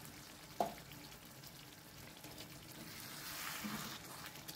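Fish curry simmering and bubbling in an open pan, with a single sharp clink about half a second in. Near the end a ladle stirs through the thick gravy, a louder wet scraping.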